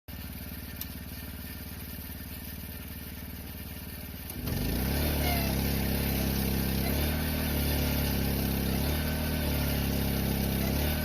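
Engine running at a steady low speed, then picking up to a higher, louder speed about four and a half seconds in and holding there.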